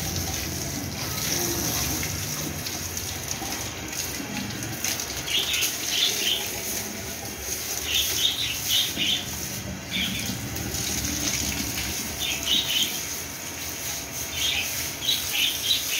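Water pouring from a garden hose and splashing across a wet marble floor as it is scrubbed with a stiff-bristled broom, with clusters of brief high-pitched bursts every couple of seconds.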